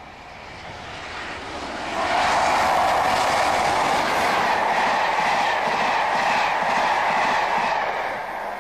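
Diesel-hauled passenger train passing at speed: the locomotive approaches and grows louder, goes by with a sudden jump in level about two seconds in, then the coaches rush past with a steady clickety-clack of wheels over rail joints, easing off near the end.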